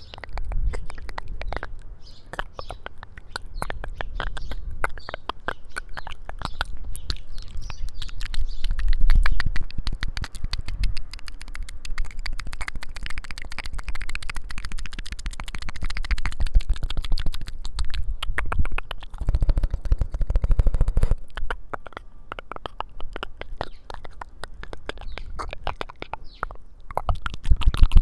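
ASMR mouth sounds close to the microphone: rapid, continuous wet clicks and lip sounds.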